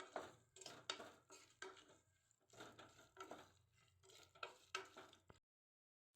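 Faint spoon scraping and clinking against a pressure cooker pan, about a dozen strokes, as tomatoes and onions are stirred and sautéed in oil. The sound cuts to dead silence near the end.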